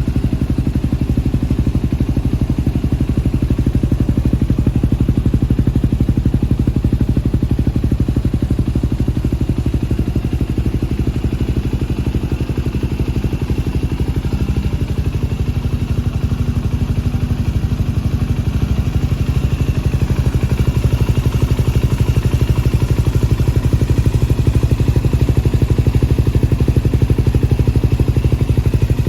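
Yamaha WR250X's 250 cc single-cylinder four-stroke engine idling steadily through an FMF silencer and SP Tadao Power Box exhaust pipe, with an even, regular exhaust beat.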